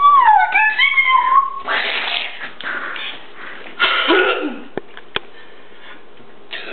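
A high, squeaky voice gliding up and down for about a second and a half, followed by two rough, breathy bursts, the second dropping in pitch, and two faint clicks near the end.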